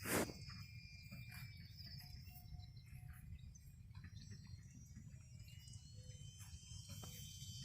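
Quiet outdoor ambience: a steady low wind rumble on the microphone with faint, scattered chirps, and a short thump right at the start.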